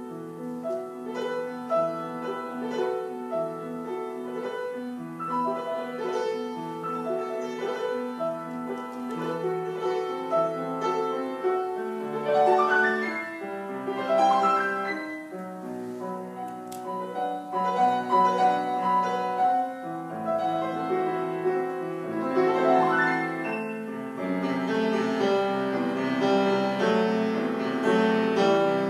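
Classical piano music, a flowing line of notes that grows louder in the second half.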